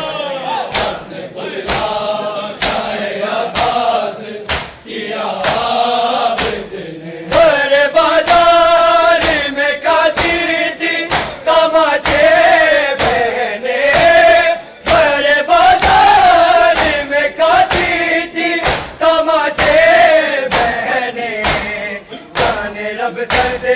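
A group of men chanting a noha in unison, with the sharp slaps of matam, mourners striking their bare chests with their hands, keeping a steady rhythm under the singing.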